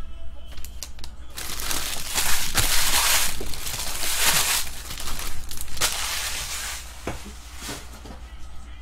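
Foil wrappers of 2016-17 Upper Deck SP Authentic hockey card packs being crumpled in the hands: a dense crinkling for several seconds that tails off near the end.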